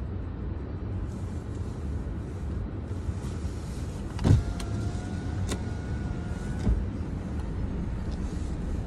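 Car interior while the car creeps forward: a steady low engine and road rumble, with a sharp thump about four seconds in, followed by a faint high two-tone whine lasting about two seconds and a couple of light clicks.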